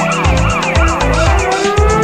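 Electronic police siren yelping, about three quick rising-and-falling sweeps a second, over background music with a heavy beat; about one and a half seconds in, a slow rising tone begins and climbs.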